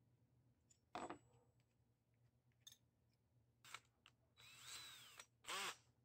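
A metal clink about a second in as a bimetal hole saw is handled on its mandrel, then a cordless drill is briefly triggered twice near the end, its motor spinning up and winding down in pitch.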